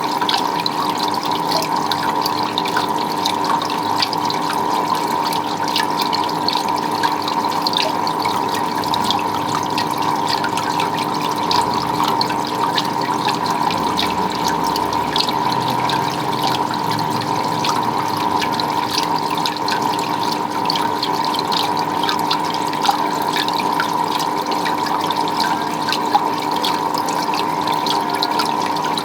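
Water running and splashing steadily, with a continuous steady hum underneath.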